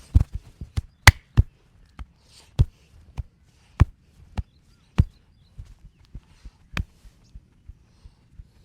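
Massage hands striking a person's body: a string of sharp slaps and pats at uneven intervals, roughly one or two a second, the loudest a little over a second in, with soft rubbing between strokes.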